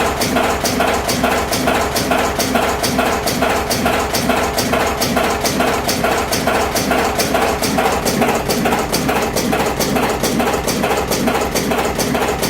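R-45 electric automatic cigarette-filling machine running: a steady mechanical clatter with about four clicks a second as it cycles.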